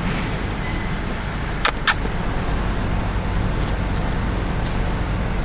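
Steady road and engine rumble inside a moving car's cabin, with two sharp clicks close together about a second and a half in.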